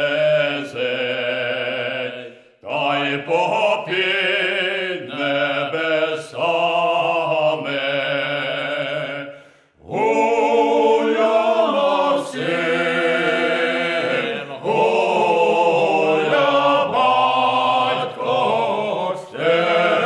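Choral singing in slow, long-held phrases, with two short breaks between phrases, about two and a half and ten seconds in.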